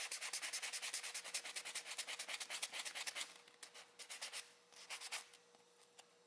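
Sanding block rubbed over a small carved poplar-wood lure body to smooth it, in quick back-and-forth strokes several a second. After about three seconds the strokes thin out to a few scattered rubs and stop near the end.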